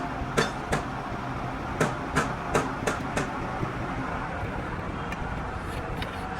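Sharp metal-on-metal strikes on excavator track parts: about seven knocks in the first three seconds, then a few fainter ones, over a steady low machine hum.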